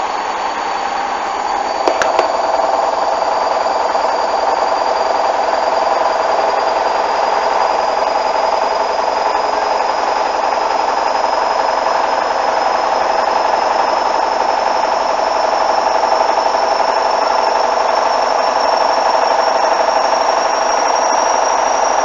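Hoover front-loading washing machine spinning, its motor's high whine rising slowly and steadily as the drum picks up speed. A couple of quick knocks come about two seconds in.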